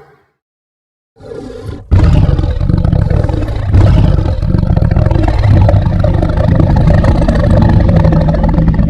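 Animated giant Tyrannosaurus rex roar sound effect. A brief growl comes about a second in, then a long, loud, deep roar follows and eases slightly near the end.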